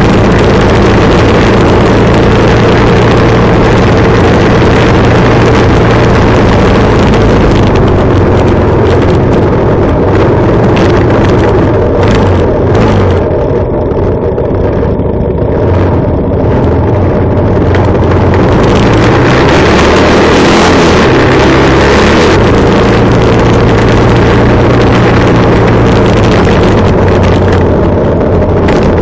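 Motorcycle riding along, engine running steadily at cruising pace, with heavy wind noise on the microphone. The wind hiss drops back for a while around the middle, then returns.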